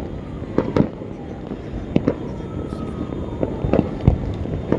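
New Year fireworks going off: sharp, irregular bangs, sometimes two in quick succession, over a steady crackling din of many more distant fireworks.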